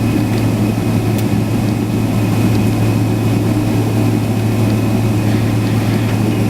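Steady low drone inside a jet airliner's cabin while it taxis after landing: engines at idle with the air-conditioning hiss, a strong even hum underneath.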